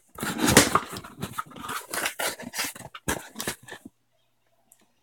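A cardboard shipping box being torn open by hand: a quick run of rough tearing, scraping and crinkling of cardboard and tape that cuts off suddenly about four seconds in.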